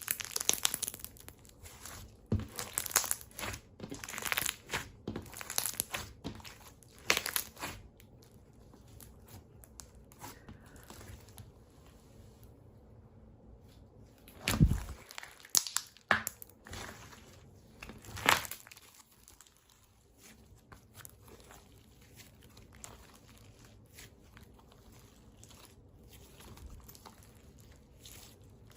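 Clear slime being squeezed and pressed by hand, giving sticky crackles and sharp bubble pops. The pops come thick and fast at first, with the two loudest about halfway through, then fade to faint, scattered crackling.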